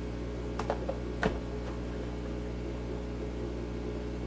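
Steady hum of aquarium equipment in a room full of running tanks, with a few light clicks and one sharper knock about a second in as a plastic tub is handled.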